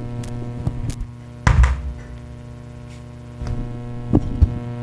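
Steady electrical mains hum through the speakers of a Taramps TS 1200 car amplifier running on a switching power supply. About one and a half seconds in there is a single loud thump from the system, with a few lighter clicks and knocks later.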